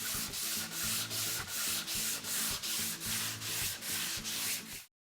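Sandpaper wrapped on a cork-faced hand sanding block rubbing back and forth across wood in steady strokes, about two and a half a second; it stops abruptly near the end.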